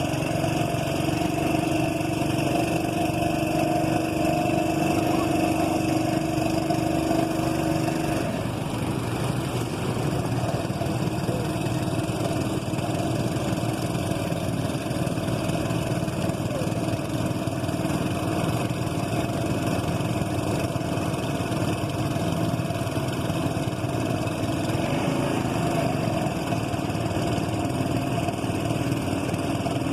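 A boat's engine running steadily at a constant speed, its hum changing slightly about eight seconds in.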